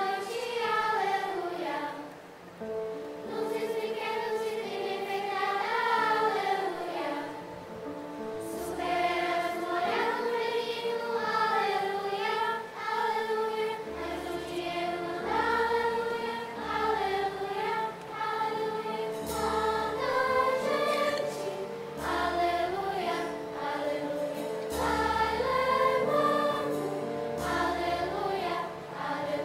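Children's choir singing a Christmas song over instrumental accompaniment, with low bass notes coming in about nine seconds in.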